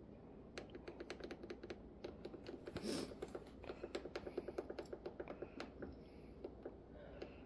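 Rotary control dial of a Ninja Foodi multi-cooker clicking through its detents as the pressure-cooking time is dialled up: a quick, uneven run of small clicks that stops shortly before the end.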